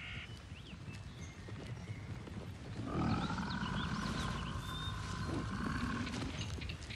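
European bison calling: one drawn-out call of about three seconds, starting about three seconds in. Birds chirp faintly in the background.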